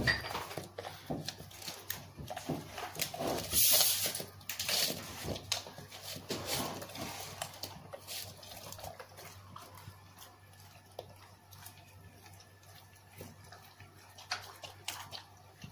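American Staffordshire terrier eating grilled meatballs from a steel bowl: wet chewing and smacking with irregular sharp clicks. The sounds come thick and loud for the first several seconds, then thin out and grow quieter.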